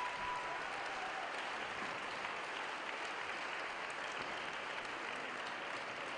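Audience applauding steadily in an arena, with the last held note of the program music fading out about half a second in.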